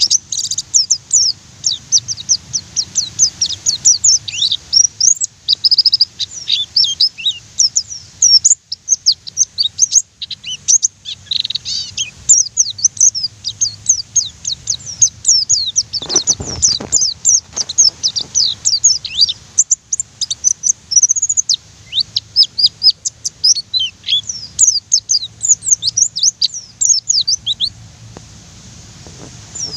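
White-eye (pleci) singing a fast, almost unbroken run of high, thin chirps and trills, many notes a second with short pauses. This is the rapid 'nembak' song that keepers play to set other pleci singing. A brief low rumble comes about halfway through.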